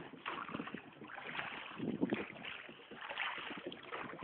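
Faint, indistinct voices over a steady background noise.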